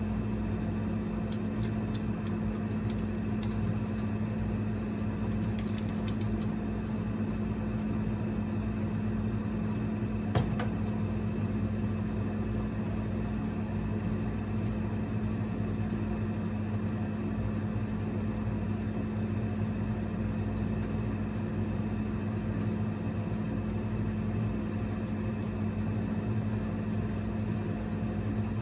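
Single-burner induction cooktop running: a steady electrical hum with a fan whir, and one sharp tick about ten seconds in.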